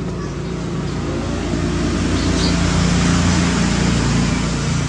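Motor vehicle engine humming steadily, growing louder toward the middle and then fading a little.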